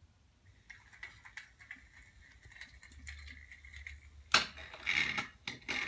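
Light, rapid clicking and a faint steady whir from a small toy train's mechanism as a toddler handles it, then a few loud knocks and clatter of toys against a wooden table.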